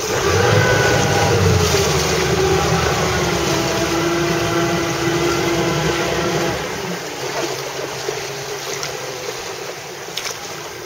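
Motorboat engine running, its pitch falling slowly for about six seconds before it drops away, leaving wind and water noise.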